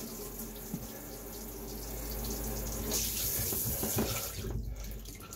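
Water spraying from an old high-flow handheld RV shower head into the tub in a steady rush that swells about halfway through, then dies away near the end as the faucet is turned off.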